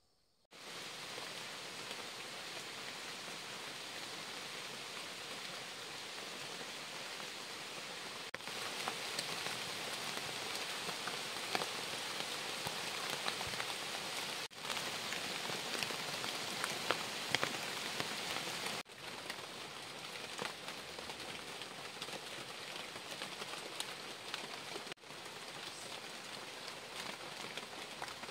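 Steady rain falling on forest foliage and broad banana leaves, a dense patter. Its loudness jumps up or down abruptly a few times where separate takes are cut together.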